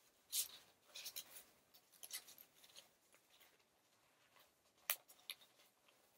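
Faint scratchy rustling with a few sharp light clicks: a phone being worked into a snug phone pouch by hand.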